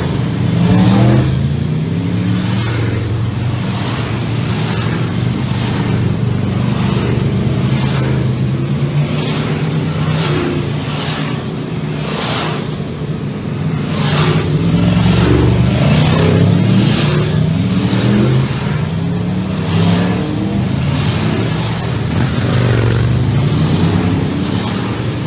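Aprilia RSV4 RF's V4 engine under way, revving up through the gears several times, its pitch climbing and then dropping back at each shift, over steady wind and road noise.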